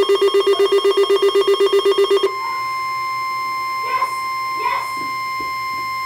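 Weather alert radio sounding its alarm: a pulsing tone of about six beeps a second stops about two seconds in. The steady NOAA Weather Radio 1050 Hz warning alarm tone then takes over, signalling an incoming warning.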